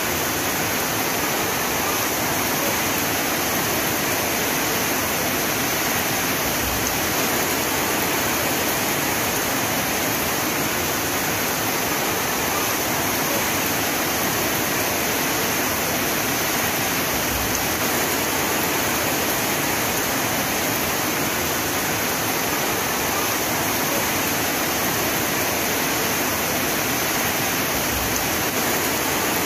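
Heavy rain as a steady, even hiss with no separate drops standing out.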